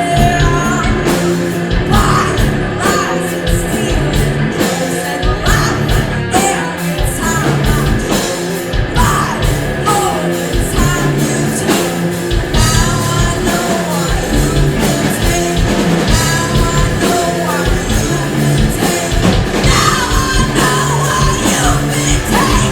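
Loud rock music: a band playing with drums hitting steadily under a singer's shouted, yelled vocals.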